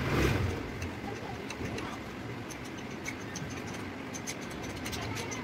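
Irregular light metallic clicks as the two 13 mm bolts on a leaf spring's center-pin clamp are tightened by hand, over a steady workshop background hum. A brief louder rustling burst comes right at the start.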